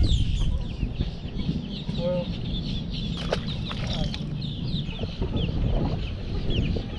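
Many birds calling from the reeds, short quick calls repeating over and over, over a steady low rumble. A couple of sharp clicks come a little past three seconds in.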